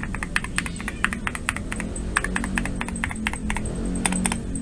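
Keys of a gasket-mounted GMK67 mechanical keyboard with PBT keycaps being pressed in an irregular run of clicks, several a second. Each keystroke sounds about the same as the others, which is typical of the gasket mount.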